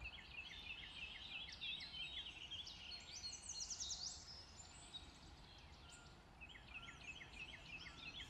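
Faint birdsong: several birds calling in quick runs of short down-slurred chirps, with higher rising notes about three to four seconds in and a brief lull after about five seconds before the chirping resumes.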